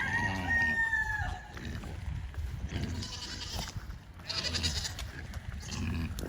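A rooster crows once at the start, a held call that falls away at its end. About three and four seconds in come two short, shrill calls from hungry livestock waiting to be fed.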